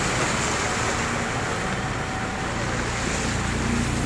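Brown floodwater rushing down a street, a steady wash of water noise. Near the end a vehicle engine grows louder as a van drives through the water.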